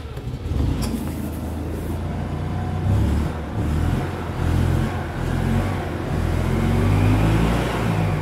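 EZ-GO golf cart's gas engine running on choke just after a cold start, held on the gas pedal, its speed rising and falling.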